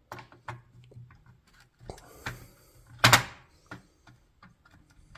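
Scattered sharp clicks and knocks of a screwdriver working on the garage door opener's control board while the middle screw is being taken out, with one loud knock about three seconds in.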